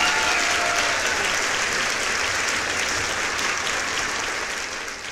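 Applause: many hands clapping steadily, fading out near the end.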